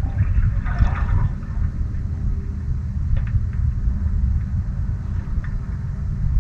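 Wind rumbling on the microphone, with a short splash-like hiss of water about a second in.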